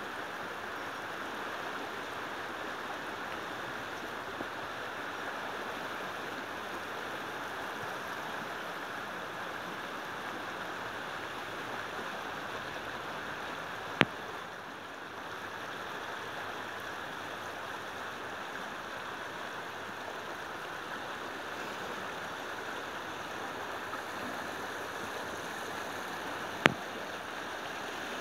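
Swollen River Severn in flood, its water rushing steadily past the bank. Two sharp clicks cut in, one about halfway through and one near the end.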